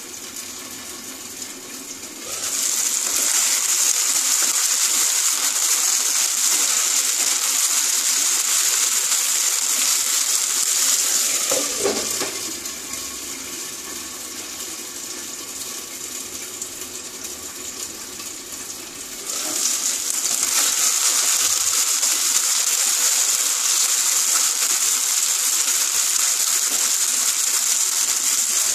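Soya chunks frying in shallow oil under a glass lid, a dense high-pitched sizzle with the oil spattering. The sizzle turns loud about two seconds in, eases off for several seconds midway, and swells again later.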